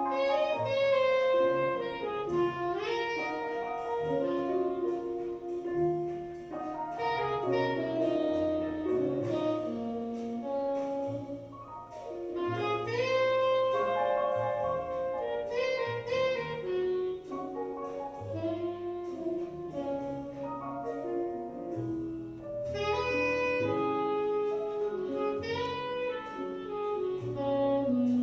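Instrumental music: a melody line with chords over held bass notes, played without a break.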